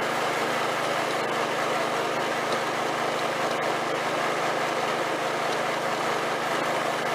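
Small engine of a Snapper rear-engine riding mower running at a steady pitch while the mower is driven downhill.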